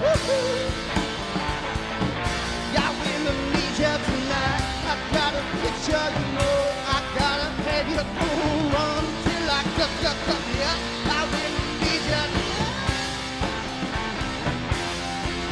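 A live rock band playing a passage with no sung words: electric guitar over a drum kit, loud and steady.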